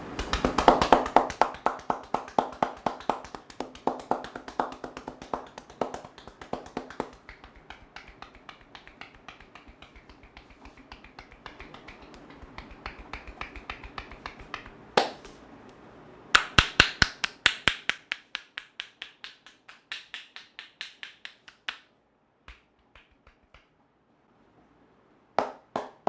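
Hands slapping and tapping rapidly on a person's head during an Indian head massage: quick even runs of sharp claps, about four or five a second. The claps fade away, a single louder smack comes near the middle, a second loud run follows, and a few scattered taps close it.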